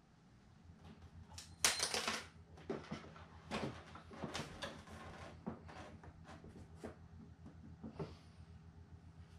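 Irregular small clicks, taps and rustles of hands working small metal hardware and pliers against a foam RC airplane's struts, with a louder scraping rustle about two seconds in. A faint steady low hum sits underneath.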